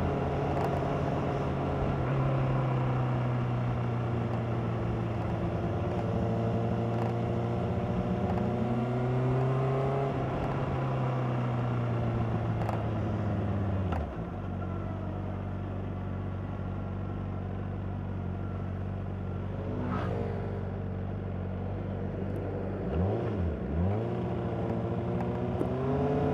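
Honda CBR600RR inline-four engine running on its stock exhaust while riding, its note holding fairly steady and then dropping sharply about halfway through. Near the end the revs dip and rise twice in quick succession, then climb.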